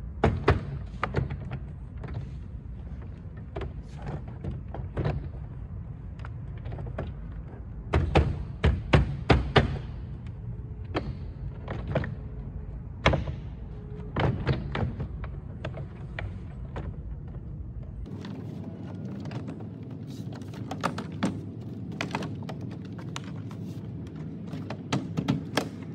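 Plastic car door trim panel being pressed and tapped onto the door, its retaining clips snapping into place: a series of sharp knocks and clicks, coming in quick clusters.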